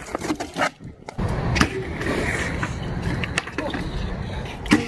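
BMX bike wheels rolling over concrete: a steady low rumble begins about a second in, with a few sharp clicks and knocks from the bike over the top.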